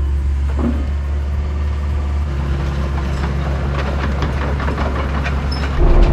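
A large engine running steadily, then abruptly louder near the end as the throttle is opened.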